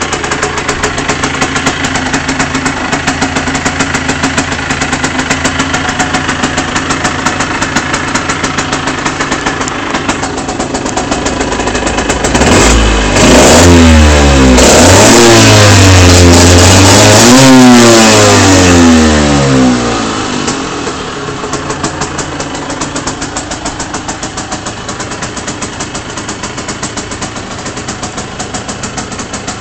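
2002 Aprilia RS 50's 50 cc two-stroke single with an Arrow exhaust idling in neutral, then revved hard several times for about seven seconds, about twelve seconds in, before dropping back to a steady idle.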